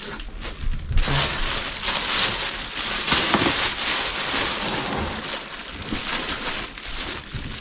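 Plastic-bagged spray-foam packing being handled and pulled from a shipping box: dense crinkling and rustling that swells about a second in.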